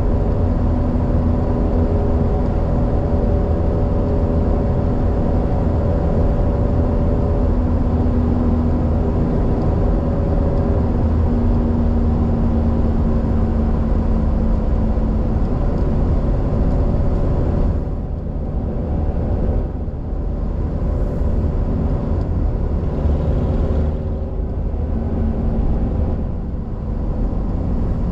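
Road noise inside a moving car: a steady low rumble of tyres and engine with a few faint steady engine tones, easing slightly about two thirds of the way through.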